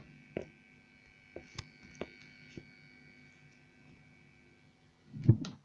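Handling noise of a phone camera being positioned by hand: several light knocks and clicks over a faint steady high whine, then a louder low thump near the end.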